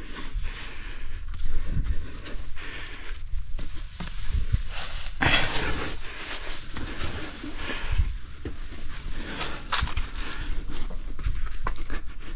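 A rock climber's breathing and the scuffing of hands and clothing against sandstone as he pulls up the cliff, close to the microphone. Irregular bursts of hiss and a few sharp scrapes sit over a steady low rumble.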